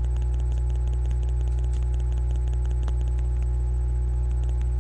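Steady low electrical hum, even and unchanging, with faint rapid crackling clicks over it.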